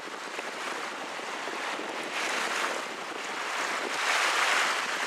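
Strong wind and choppy lake water make a steady rushing noise. It swells with a gust about two seconds in and again, louder, about four seconds in.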